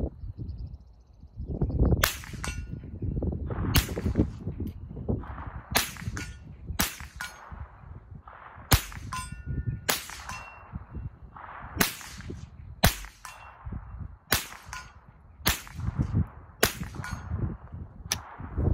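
Browning SA-22 semi-automatic .22 rifle fired about eleven times, a sharp shot every one to two seconds. After many shots a faint metallic ring follows a split second later: the bullet striking a steel target about 100 yards away.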